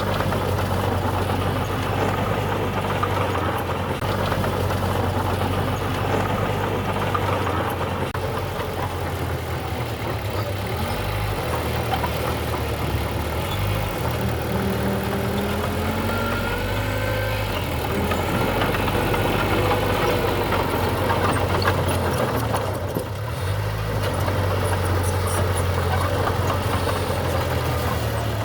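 Diesel engine of heavy construction machinery running steadily, its low note shifting a few times as it works, with a few faint squeaks about midway.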